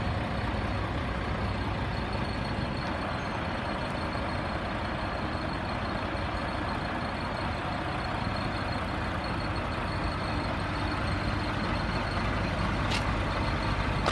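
Heavy diesel truck engine, the Scania P124.420's 12-litre six-cylinder, idling steadily.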